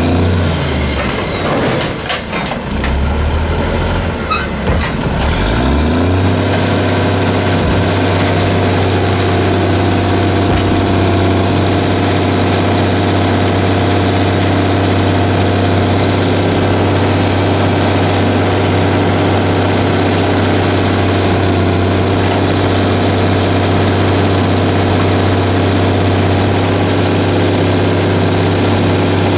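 The diesel engine of a 1982 American LaFrance CTC garbage truck running, its speed dipping and rising for the first several seconds, then held steady. A few short knocks sound in the first few seconds.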